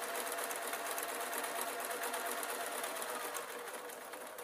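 Basic domestic electric sewing machine running at a steady speed, stitching a straight seam through layered quilt fabric, with rapid repeated needle strokes over a steady motor hum.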